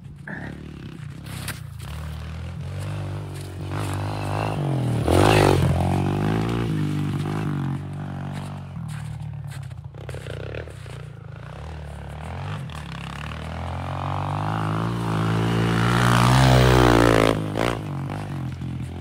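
Mini dirt bike engine revving up and down as it rides through snow, climbing in pitch to a loud peak about five seconds in and again around sixteen seconds in before it drops off.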